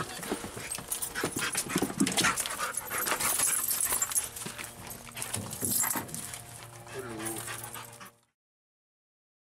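Dog whimpering and panting, mixed with rustling and clicking; it all cuts off suddenly about eight seconds in.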